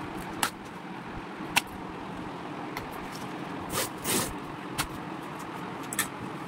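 Cardboard packaging being handled: a few sharp knocks, and two brief scraping swishes about four seconds in. Underneath runs a steady traffic-like hum.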